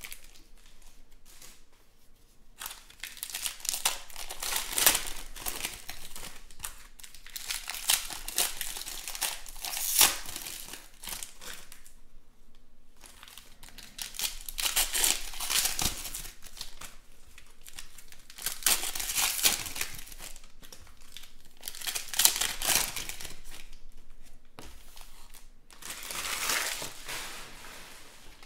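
Foil wrappers of 2020 Panini Chronicles Baseball trading-card packs being torn open and crinkled by hand, in repeated bursts every few seconds.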